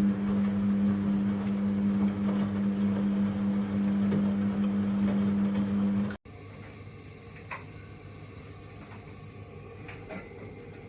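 Front-load washing machine running with a steady mechanical hum that cuts off abruptly about six seconds in, leaving a quieter low hum with a few faint ticks.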